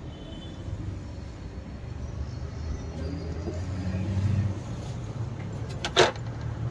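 Steady low rumble of a vehicle running nearby, swelling about four seconds in, with a single sharp knock near the end.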